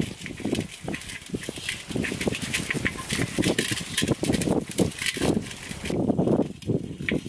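Hands squeezing and rubbing a wet spice paste into raw pork ribs in a metal pan, giving an irregular run of squelches and small slaps.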